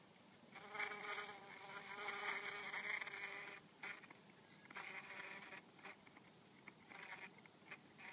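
Bumblebee buzzing inside the pouch of a lady's slipper orchid as it struggles to get out of the slippery flower: one unbroken buzz of about three seconds, then shorter spells of buzzing with pauses between them.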